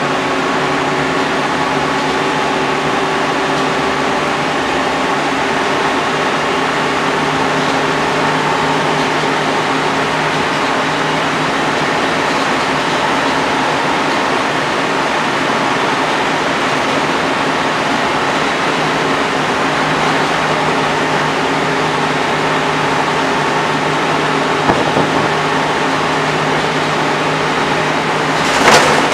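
Inside the saloon of a Volvo B10BLE single-deck bus with Wright Renown body: the rear-mounted six-cylinder diesel engine running at a steady pitch under road and tyre noise while cruising, with a single knock near the end.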